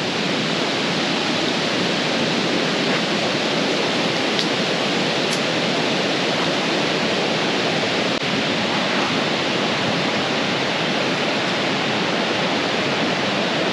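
Steady, even rushing noise at a constant level, with a couple of faint ticks about four and five seconds in.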